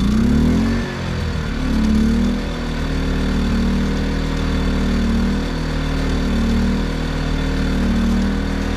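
Predator 2000 inverter generator's small single-cylinder four-stroke engine running just after starting, with the eco throttle switched off. Its pitch drops in the first second and lifts briefly about two seconds in, then it settles into a steady run with a slight regular rise and fall in level.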